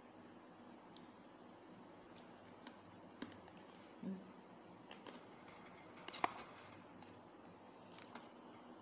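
Faint eating and handling noises from chewing chocolate-coated almonds and moving their box: scattered soft clicks and taps in a quiet room, the loudest a sharp click about six seconds in.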